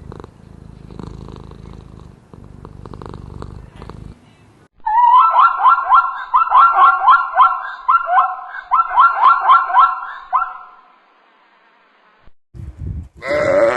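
A cat purring with a low, pulsing rumble, then, after a short break, a loud run of quick, repeated chirping calls lasting about six seconds. A new bleat-like call begins right at the end.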